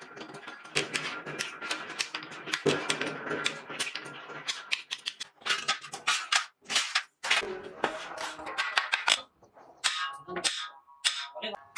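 Shovel-making work: a drill press boring through a steel shovel socket into its wooden handle, then sharp metallic clanks and hammer blows as steel shovel blades are stacked and struck, ringing after the hits.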